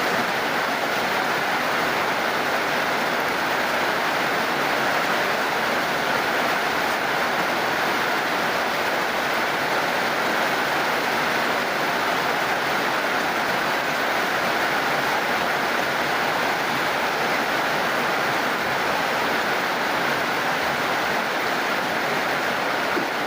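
Steady, heavy rain falling, an even hiss without distinct drops or pauses.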